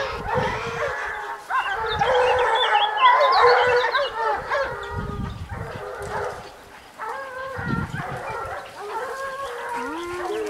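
A pack of scent hounds baying in chorus, many voices overlapping without a break, as they run the trail of a wild boar. A nearer hound's voice comes in near the end.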